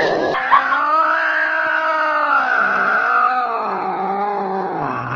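Angry cat yowling: one long, drawn-out call that starts sharply about half a second in and slowly rises and falls in pitch.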